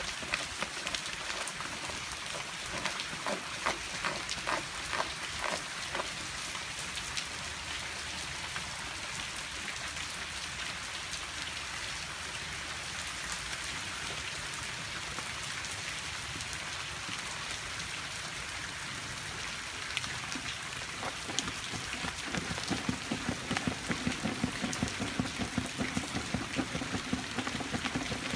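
Steady rain falling on grass, with a puppy scratching and gnawing at a wooden board: bursts of rapid scraping strokes a few seconds in and again through the last several seconds.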